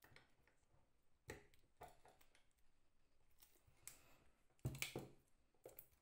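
Faint scattered clicks and knocks of metal parts being handled and fitted together as an AXA glazing point driver is reassembled by hand, the loudest a short cluster about five seconds in.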